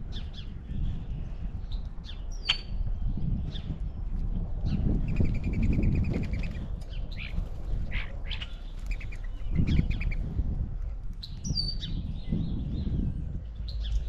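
Wild birds chirping and calling at a backyard feeder: scattered short chirps and whistles, with a quick rattling trill about five seconds in, over a steady low rumble.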